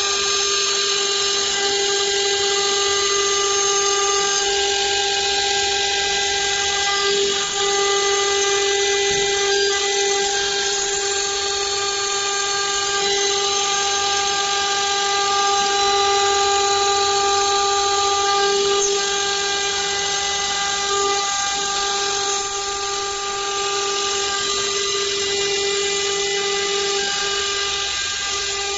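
CNC router spindle milling a metal plate with an end mill: a steady high-pitched machining whine with a hiss over it, running on without a break.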